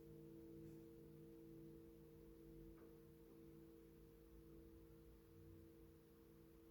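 Himalayan singing bowls ringing softly after being struck, several steady tones sounding together and slowly fading.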